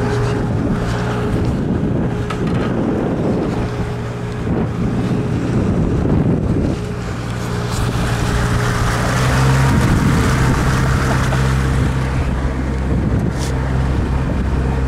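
Motorboat engine running steadily at low speed, a constant low hum, with wind buffeting the microphone and water rushing past the hull.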